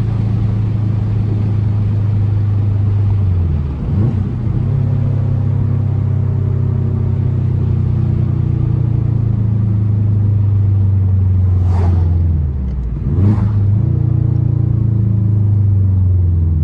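2004 Subaru WRX's turbocharged EJ flat-four running through an Invidia aftermarket exhaust, pulling under way with a steady rumble. The engine note drops and picks up again about four seconds in and just before thirteen seconds, as at a gear change. Near the second change come a couple of short, sharp cracks.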